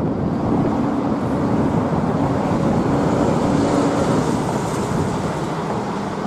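Jet engines of a four-engined Airbus A340 airliner running as it taxis and turns onto the runway: a steady rumble and hiss, with a faint high whine in the middle.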